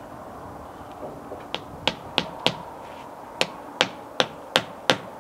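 Claw hammer driving roofing nails into the mitered corner of a foam window buck to clamp it, sharp strikes in two runs, four then five, about three a second.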